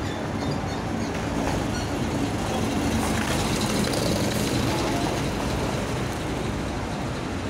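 Engine of a vintage city bus running as it drives slowly past close by, with the engines of the following historic buses behind it.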